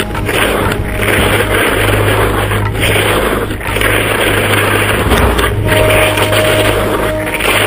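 Wind rushing over a body-worn action camera's microphone while skiing on frozen snow: a loud, steady noise with a low rumble and brief dips about once a second.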